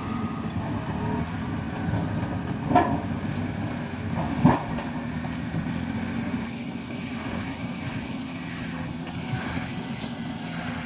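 Caterpillar D6T bulldozer's diesel engine running steadily, with two sharp knocks about three and four and a half seconds in.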